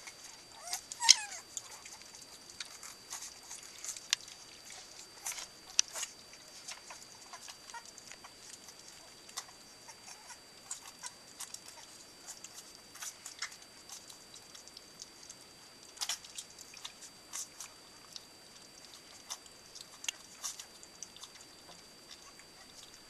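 Sixteen-day-old Cardigan Welsh Corgi puppies eating their first meal from a shared round bowl: scattered wet smacking and lapping clicks, with a brief puppy squeak about a second in.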